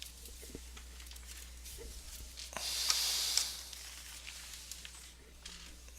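Trading cards and packaging being handled: faint light clicks and taps, with one brief, louder high rustle about three seconds in.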